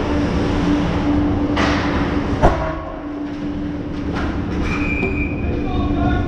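Hockey skates scraping and carving on the ice close to the goal, with stick-on-ice clatter, over a steady low hum. One sharp crack of a puck or stick strike comes about two and a half seconds in.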